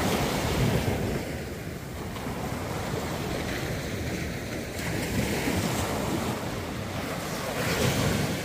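Small waves breaking and washing up a sandy beach, the surf swelling and easing a few times.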